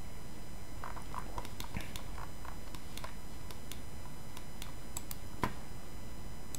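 Computer mouse clicks and light ticking over a steady faint hiss: a quick run of small clicks about a second in, and one sharper click near the end.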